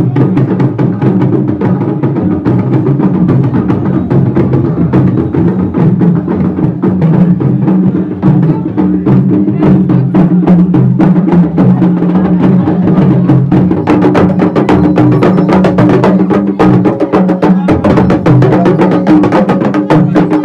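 Music driven by fast drumming, with dense sharp clicks over a low line that steps between a few pitches. The drumming grows busier in the second half.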